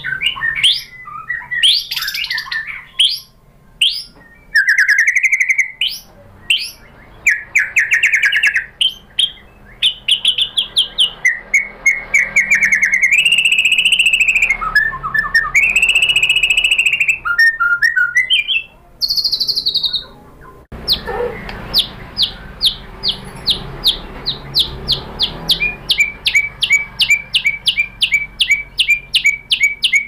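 White-rumped shama singing a varied song of loud whistled phrases with rising and falling notes, then from about two-thirds of the way in a long run of short sharp repeated notes, about four or five a second.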